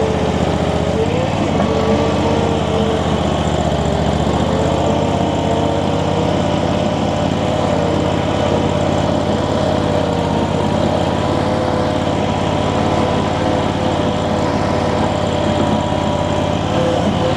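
Infront YF380 mini skid steer's engine running steadily under work, its pitch wavering slightly as the machine moves.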